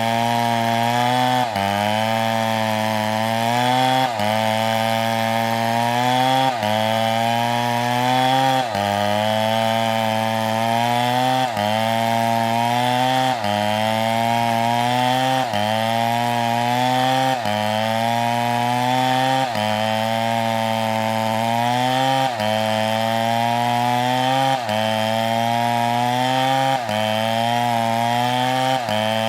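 A STIHL chainsaw running under load as it cuts through a palm trunk. Its engine note drops sharply and climbs back up about every two seconds as the chain bites and frees.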